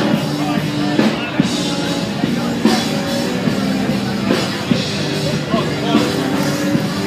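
Rock music playing.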